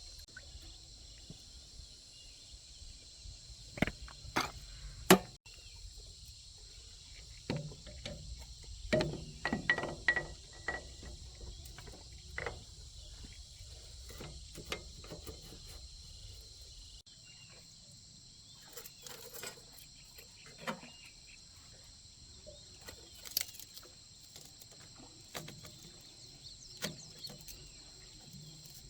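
A steady, high-pitched chorus of insects such as crickets or cicadas, with scattered knocks and clicks. The loudest knock comes about five seconds in, and a cluster follows around nine to ten seconds.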